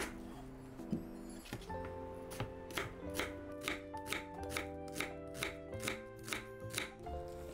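Knife chopping on a cutting board, evenly paced at about two to three strokes a second, over background music with sustained notes.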